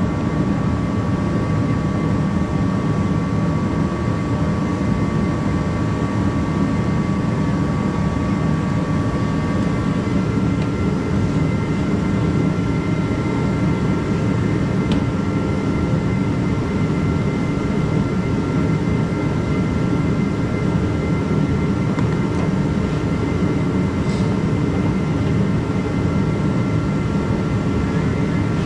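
Steady mechanical drone with a few faint whining tones over it. One tone changes pitch about ten seconds in.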